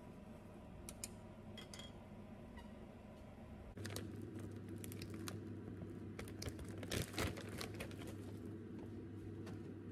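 A plastic bag of frozen dumplings crinkling and rustling as it is handled, starting about four seconds in, over a steady low hum; before that only a few light clicks.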